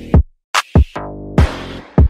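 Instrumental electronic music with a drum-machine beat of deep kick-drum hits and sharp high hits. A sustained synth chord comes in about halfway through.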